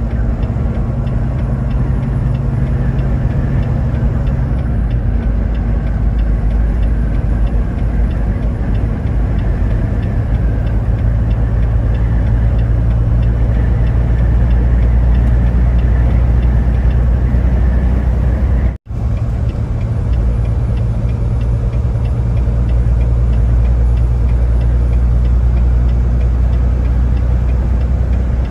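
Steady running noise of a road vehicle: a constant low engine hum over road noise, broken by a momentary dropout about two-thirds of the way through.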